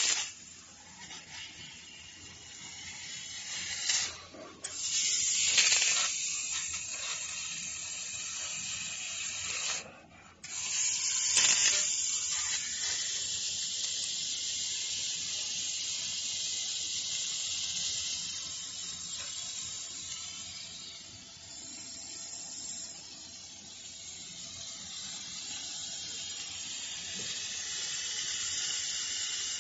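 CNC laser cutting machine cutting steel plate: a steady high hiss of assist gas from the cutting head. It swells louder a few times and drops out briefly about ten seconds in before coming back.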